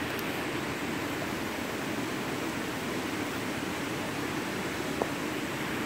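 Steady rushing hiss of a river and its falls, even throughout, with one short click about five seconds in.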